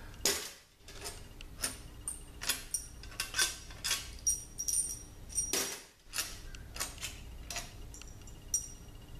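Steel valve-body bolts clinking and jingling together in the hand as they are taken out of a transmission's valve body: irregular light metallic clinks with a high ring, a few sharper knocks among them.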